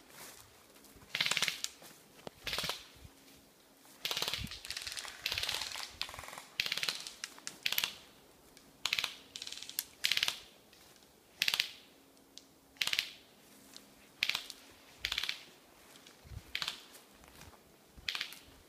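Footsteps on dry forest floor and undergrowth, about one step a second, with a stretch of continuous rustling through vegetation about four to six seconds in.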